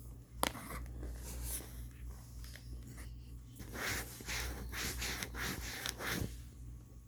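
Close-up crunching and chewing of microwave-baked cornstarch chunks, with a sharp crack about half a second in and a thick run of crunches from about four to six seconds.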